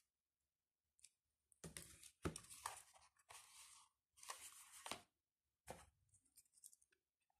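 Packaging being handled during an unboxing: about five short rustling noises, each under a second long, with a few faint clicks between them.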